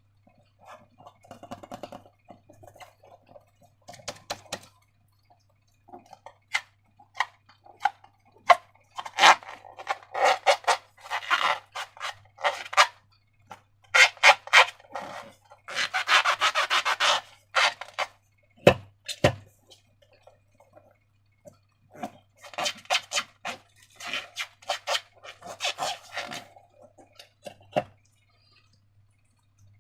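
Hands rubbing and squeezing rubber balloons, heard as bursts of short rubbing strokes with short pauses between them. A little past the middle there are two low thumps.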